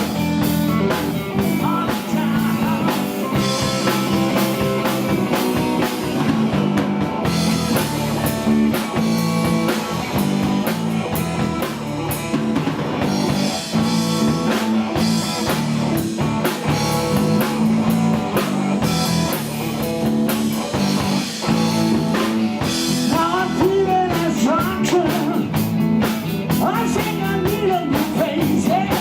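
Live blues-rock band playing, with electric guitar over bass and drum kit. The guitar line bends in pitch near the end.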